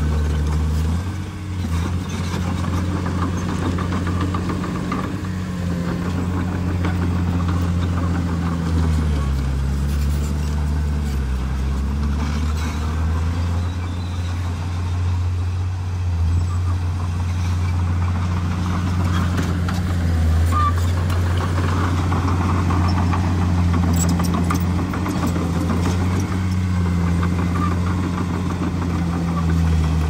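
Komatsu bulldozer's diesel engine running steadily at work, its pitch dipping for a few seconds about nine seconds in and then picking back up.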